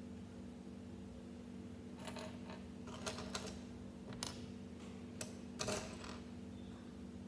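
Small plastic Lego pieces clicking and rattling as they are picked from a pile on a table and pressed together: a string of short sharp clicks from about two seconds in, the loudest near the end, over a steady low hum.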